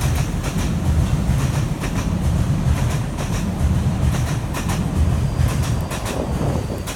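Tokyu Toyoko Line electric commuter train passing close by: a steady rumble with its wheels clicking over the rail joints, the clicks often coming in pairs. The rumble eases slightly near the end.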